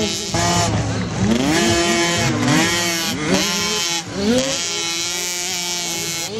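Several 65cc two-stroke motocross bikes revving, their engine notes rising and falling and overlapping one another.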